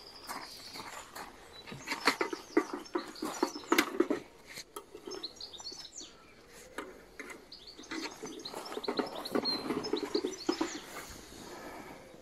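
Small birds chirping. Two spells of rustling and knocking from gear being handled on a wet unhooking mat, about two to four seconds in and again about eight to eleven seconds in, are louder than the birds.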